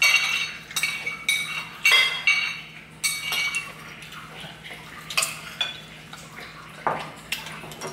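Cutlery clinking against bowls and plates as people eat: a string of sharp, ringing clinks, thickest in the first three seconds, then more scattered, with a couple more about five and seven seconds in.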